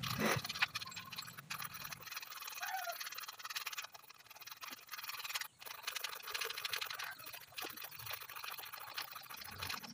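Quiet ambience: a steady high hiss with a few light clicks and scrapes from hand work on the engine, and a short bird chirp about three seconds in.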